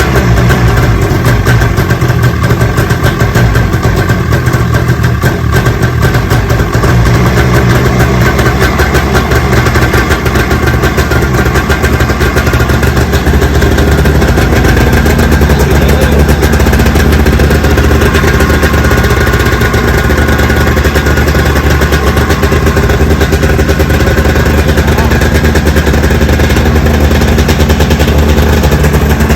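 Polaris 700 XC snowmobile's two-stroke twin engine running loud and steady.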